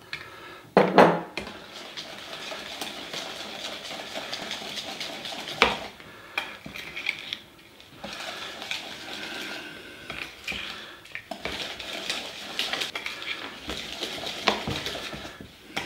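Wire whisk stirring a thick batter of ground hazelnuts, eggs and sugar in a glass bowl, its wires scraping and clinking against the glass, with a couple of short pauses. A sharp knock about a second in.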